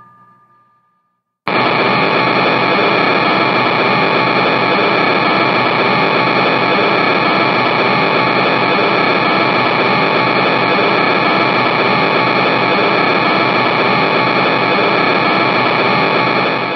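An electronic tone fades out to silence. About a second and a half in, loud radio static hiss cuts in abruptly, with a few faint steady tones inside it, and holds at an even level.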